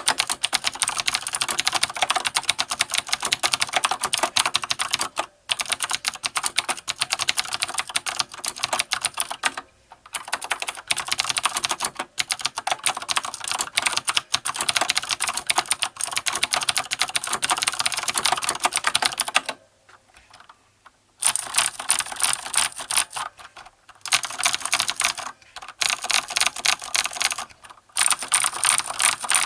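Dih Shin DS-2001 mechanical keyboard with vintage Cherry MX Blue clicky switches on a steel plate, typed on quickly and steadily: a dense stream of crisp key clicks. There are brief pauses, with a longer one of about a second and a half about two-thirds of the way through.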